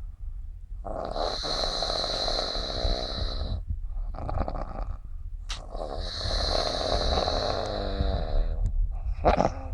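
Snoring with a high whistle through the nose on each breath: two long snores of about two and a half seconds each, with shorter breaths between them.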